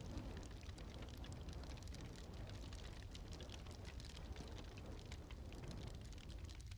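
Wood fire crackling in a fireplace: a steady scatter of small, sharp pops and crackles over a low rumble. A soft rushing hiss of flame sits under the crackles and eases off near the end.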